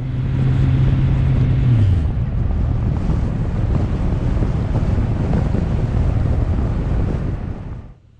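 Wind buffeting the microphone of a camera on a moving motorcycle, with the bike's low engine hum underneath that drops in pitch about two seconds in. The noise cuts off suddenly near the end.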